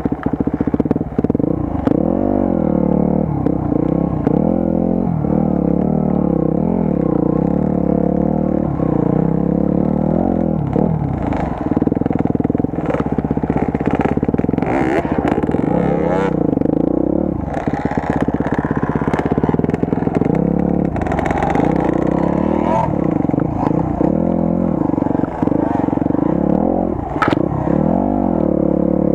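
Enduro motorcycle engine running under load, its revs rising and falling again and again as the throttle is worked, with occasional sharp knocks and clatter.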